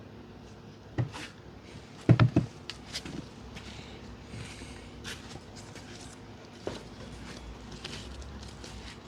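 A few separate knocks and light clicks from parts and tools being handled during auto repair work: one knock about a second in, a quick cluster of three or four louder knocks a second later, and another single knock near the end.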